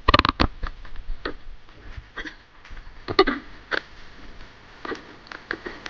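Scattered clicks and knocks at irregular intervals from handling a fishing reel and rod while working a jigging line, a cluster of them just after the start and another about three seconds in.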